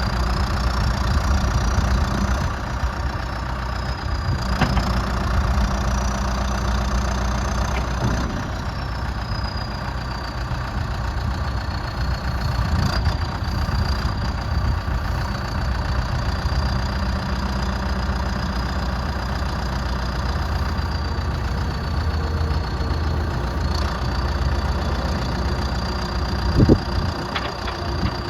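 The diesel engine of a John Deere 310SJ loader backhoe, a four-cylinder, runs steadily with a faint high whine wavering in pitch above it. A single sharp knock comes near the end.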